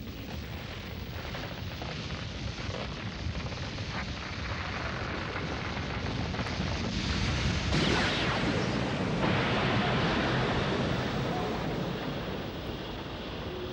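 Large bonfire burning, a steady rushing noise that swells about eight seconds in and eases off toward the end, as the fire is smothered.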